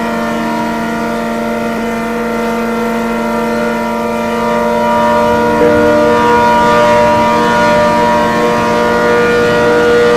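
ACA Hurricane mechanical warning siren sounding a steady alert tone: a loud chord of several pitches held level, getting somewhat louder about halfway through.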